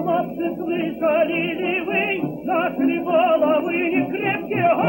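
Background music: a melody with a wavering vibrato over a sustained accompaniment.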